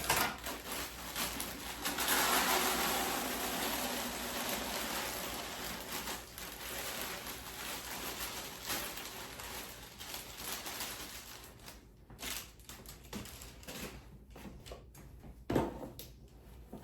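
Dry cereal pouring out of a cereal dispenser container, a rattling rush that is strongest from about two to five seconds in and then thins to a lighter trickle. A few sharp clicks and knocks follow near the end.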